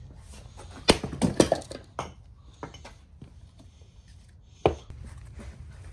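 An axe splitting firewood on a chopping block: a sharp chop about a second in, followed by a quick run of wooden clattering knocks. Near the end comes another single sharp wooden knock.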